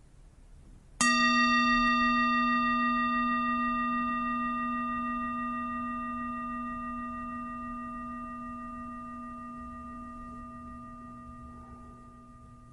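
A meditation bell struck once about a second in, ringing out in several overlapping tones that fade slowly, marking the end of the meditation.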